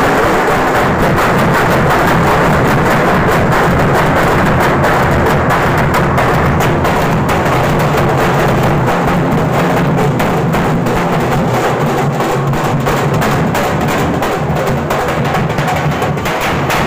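Loud, fast drumming in a dense, rapid beat.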